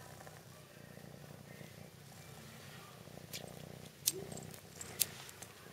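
Kitten purring steadily while nursing, with a few sharp sucking clicks in the second half.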